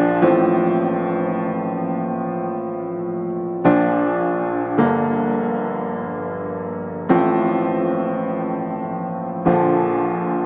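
Background piano music: slow chords struck every few seconds, each left ringing and fading.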